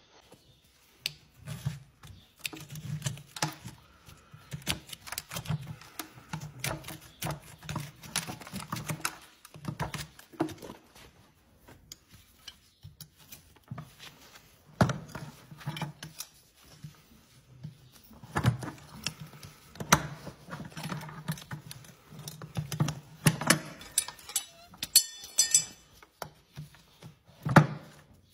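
Packed dirt and manure being scraped and picked out of the sole of a shod horse's hoof: irregular scraping, clicks and dull knocks of the tool against the hoof and the steel shoe, with a quick rattling run of ticks near the end.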